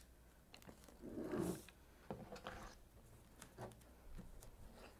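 Faint tabletop crafting sounds: light ticks, taps and paper rustles as folded paper pieces are handled and laid onto popsicle sticks, with one brief louder low sound about a second in.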